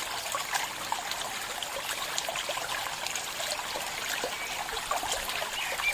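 A small stream trickling and babbling, a steady wash of running water with many small splashes.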